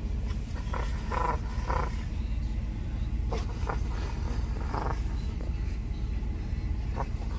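Raccoon giving several short, high chirring calls, over the steady low rumble of a vehicle's cabin.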